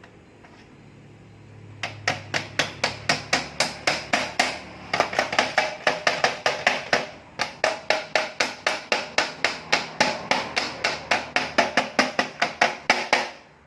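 Hammer striking rapidly, about four to five blows a second, in three runs with brief pauses between them.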